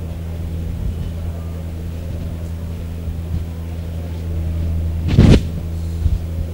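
Steady low hum, with one loud, short thump about five seconds in.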